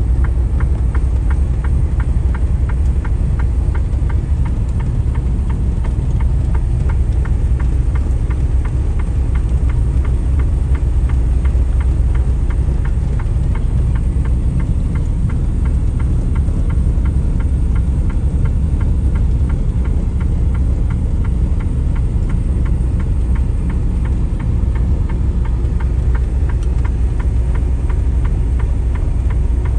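Steady low rumble of a semi truck's diesel engine and road noise heard from inside the cab.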